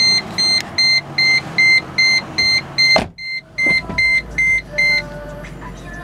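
Seatbelt warning chime of a 2007 Mercedes SLK 350 beeping rapidly, about three times a second, and stopping about five seconds in. Under it the car's 3.5-litre V6 idles just after start-up, with a single sharp click about three seconds in.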